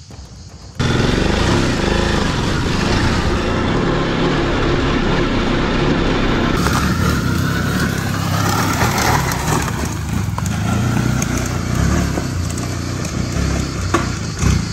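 Ducati DesertX's 937 cc Testastretta L-twin, with an HP Corse titanium exhaust, working hard under throttle up a steep, rough off-road climb, the revs rising and falling. It cuts in abruptly about a second in.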